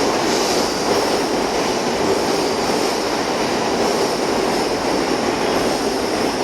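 Steady rumble and hiss of a train running on the underground Sobu Line platform tracks at Tokyo Station, even throughout with no single knocks or squeals standing out.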